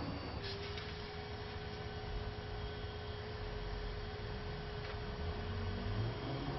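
Automated side-loading recycling truck running with a low engine rumble, and a steady whining hum from its hydraulics that starts about half a second in as the arm handles a blue recycling bin.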